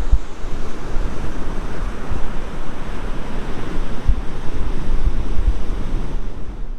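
Ocean surf washing onto the beach, with wind gusting on the microphone in low thumps.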